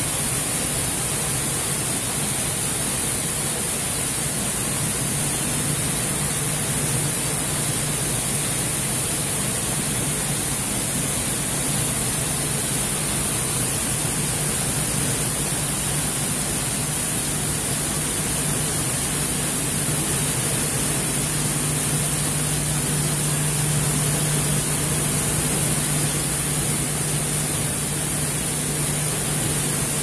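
Centrifugal dust-extractor fan running steadily: a loud, even rush of air through the ducting over a constant low hum.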